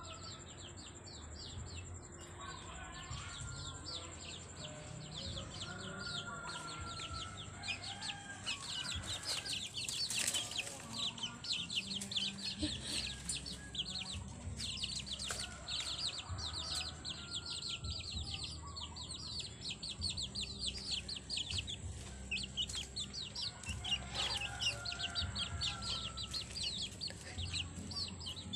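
A flock of young chicks peeping: a dense, overlapping run of short, high, falling peeps, with a few lower calls among them.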